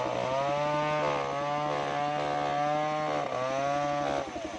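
Bench circular saw ripping a plank of waru wood: the saw's whine sags in pitch each time the blade bites into the cut and then recovers, several times, over a steady low drive drone, with a deeper drop near the end.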